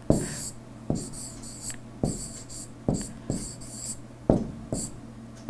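Stylus handwriting on a tablet screen: about seven sharp taps of the stylus tip with short scratchy strokes between them as a word is written, over a low steady hum.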